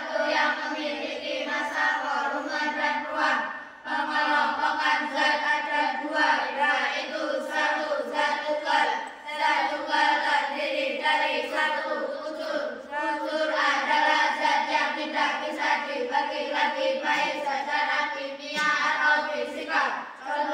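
A group of children chanting in unison, many voices reciting together at a steady, sing-song pitch.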